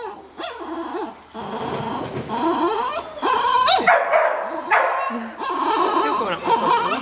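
A dog barking repeatedly in short barks, coming thick and fast from about a second and a half in.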